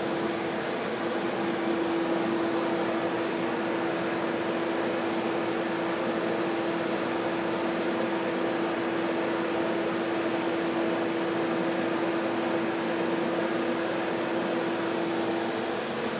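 Shop vac running inside an acoustically treated enclosure cabinet: a steady low rumble with a constant hum, the high-pitched whine of the vacuum muffled away.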